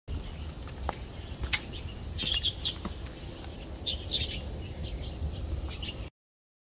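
Small birds chirping, two clusters of short high chirps, over a low background rumble with a few faint clicks; the sound cuts off abruptly about six seconds in.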